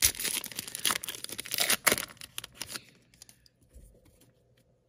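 Wrapper of a 2020 Topps Gypsy Queen baseball card pack being torn open and crinkled by hand. The rustling dies away about three seconds in.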